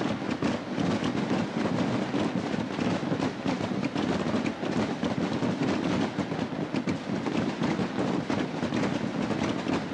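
A dense, unbroken barrage of voladores, hand-launched firework rockets, being fired and bursting: a continuous rapid crackle of many bangs at once.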